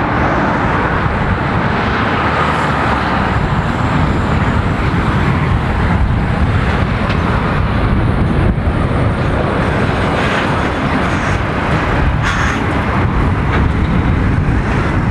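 Road traffic passing close by: a car, then a DAF articulated lorry with a curtainside trailer, its diesel engine and tyres running past with a steady heavy rumble.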